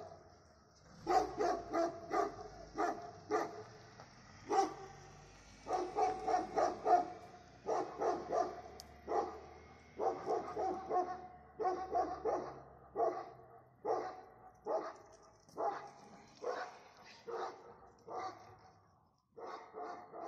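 Dog barking repeatedly in quick runs of short barks, about two to three a second, while confronting a wild boar.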